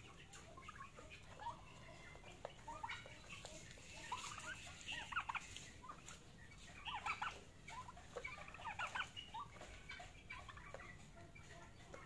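Young peafowl giving short chirping calls in scattered bursts as they feed, heaviest around the middle of the stretch, with a few faint clicks.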